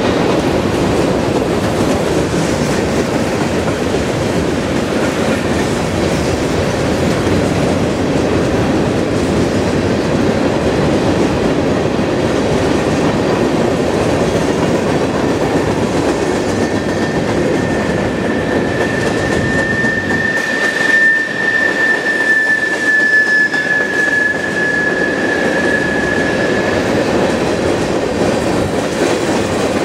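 Covered hopper cars of a freight grain train rolling across a steel trestle bridge: a steady rumble with wheel clatter. About halfway through, a high wheel squeal comes in and holds for roughly ten seconds before fading.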